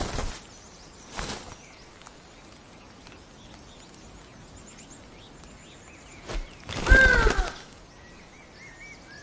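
Forest floor ambience with brief rustles at the start and about a second in. About seven seconds in comes a loud bird call of about half a second with falling pitch, followed by faint small-bird chirps near the end.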